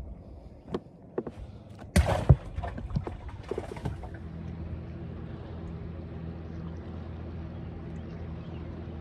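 A few knocks and thumps on the boat, the loudest pair about two seconds in. Then, from about four seconds in, a boat motor hums steadily and low.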